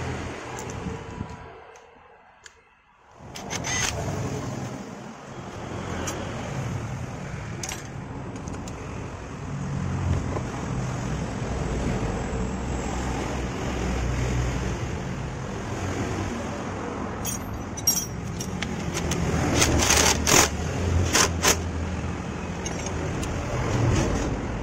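Metal clinks and taps as a motorcycle front disc-brake caliper and its bolts are handled and fitted back over the brake disc, with a cluster of sharper clinks about three-quarters of the way through. Steady low rumbling background noise underneath.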